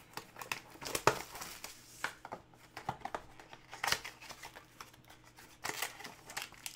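Hands opening a trading-card pack: the wrapper crinkling and tearing, with scattered short clicks and taps as the pack is handled.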